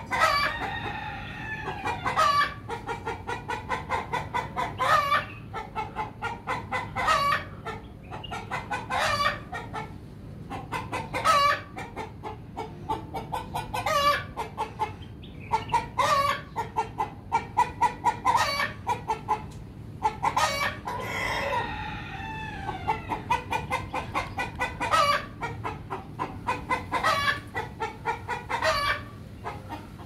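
Chickens clucking in quick runs of short calls throughout. A rooster crows twice, once at the start and again about two-thirds of the way through.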